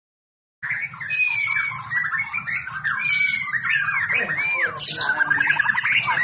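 White-rumped shama (murai batu) singing a long, varied song of clear whistles and sliding notes with a rapid trill, starting about half a second in.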